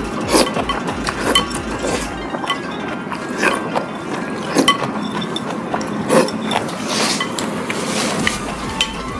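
Ramen noodles being slurped fast from large bowls, in irregular sharp slurps, with chopsticks clicking against the bowls.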